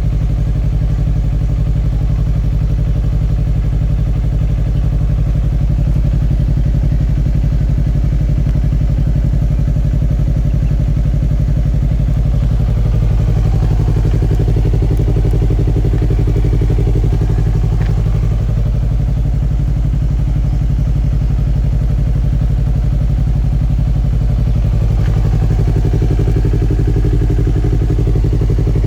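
Yamaha MT-03 motorcycle engine and exhaust running steadily at a constant low speed, without revving.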